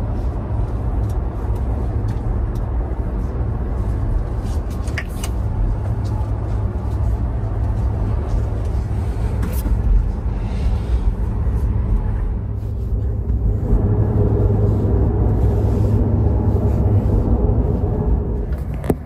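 Steady low rumble and hum inside the cabin of a CRH2E high-speed sleeper train, with a few light clicks; a mid-pitched hum grows louder about fourteen seconds in.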